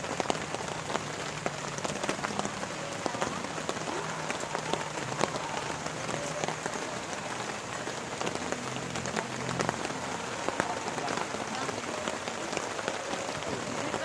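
Heavy rain falling steadily, a dense patter of individual drops striking close by.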